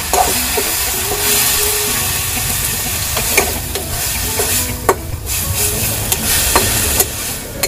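Food sizzling in a hot cooking pan while it is stirred, with a spatula knocking and scraping against the pan a few times.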